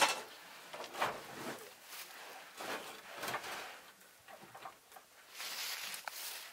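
A rusty old wood stove being handled and shifted in a vehicle's cargo area: scattered knocks and scrapes of metal, the sharpest right at the start, with a longer scraping slide a little past five seconds in.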